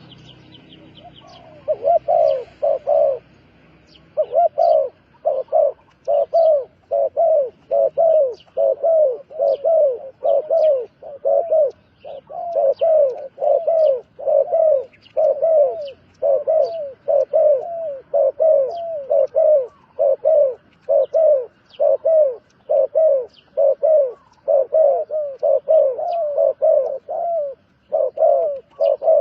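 Dove-like bird cooing: low, hollow coo notes repeated in quick runs of several at a time, over and over. Faint high chirps from small birds are in the background.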